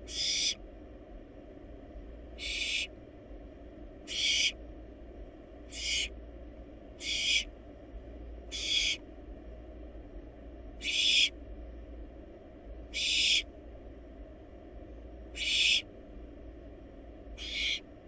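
Barn owl nestling giving ten hissing screech calls, each about half a second long, repeated every two seconds or so.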